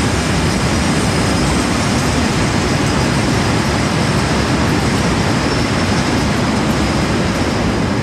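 A train passing close by: a loud, steady rushing noise of rolling stock on the rails.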